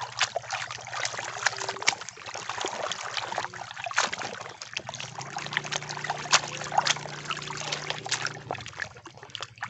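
Muddy water sloshing and splashing in a basin as a plastic toy robot is swished and scrubbed through it by hand, with many quick sharp splashes throughout.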